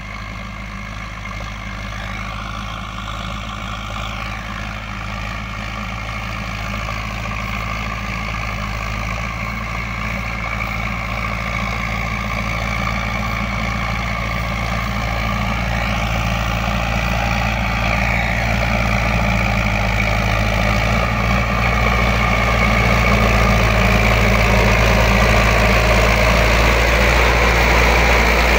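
Preet tractor's diesel engine running steadily as it pulls a plough through the field, growing steadily louder as the tractor comes up close.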